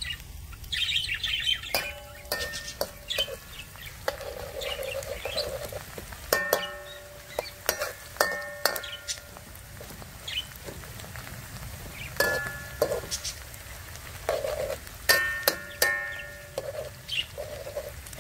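A perforated metal ladle stirring shallots frying in a steel wok, knocking and scraping the pan so it rings, in several clusters of clinks. Birds chirp in the background.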